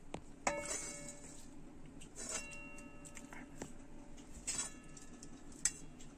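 Steel ladle clinking against a metal kadai, three ringing clinks about two seconds apart with a couple of lighter taps between.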